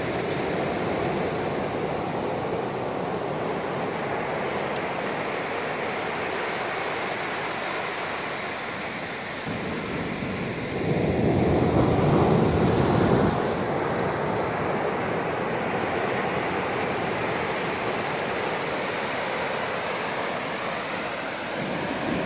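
Ocean surf washing up a flat sandy beach, a steady wash of breaking water with one louder wave surge rushing in about halfway through.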